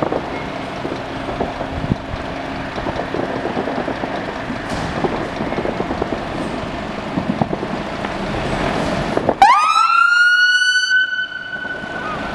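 Scania P280 fire engine's diesel engine running as the appliance moves off. About nine seconds in, its siren starts: a quick rising sweep up to a loud, steady high tone held for about two seconds.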